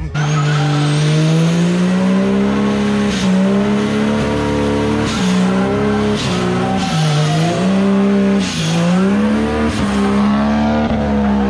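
Electric belt sander motor running flat out, its pitch wavering and dipping sharply several times.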